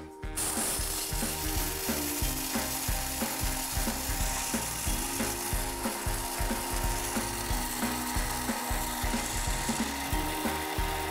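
Thermomix food processor running at high speed (speed 6), its blade chopping pieces of dark chocolate in the steel bowl, with a constant rapid clatter. It starts abruptly just after the beginning.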